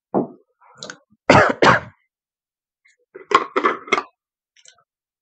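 A man coughing twice, a little over a second in, then clearing his throat with a few short rasps a couple of seconds later.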